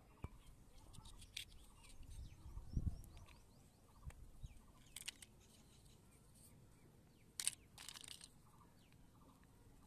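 Plastic toy building bricks being handled and pressed together: scattered light clicks and clacks, with a soft low bump about three seconds in.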